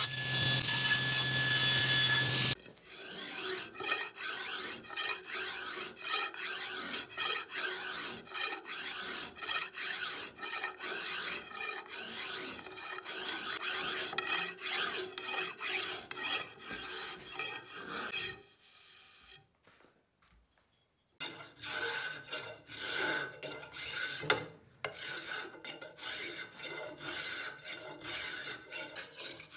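A table saw runs while ripping a mahogany strip and cuts off after about two and a half seconds. Then comes a long run of quick, repeated shaving strokes from a hand spokeshave rounding the square mahogany stick into a dowel, with a short pause about two-thirds of the way through.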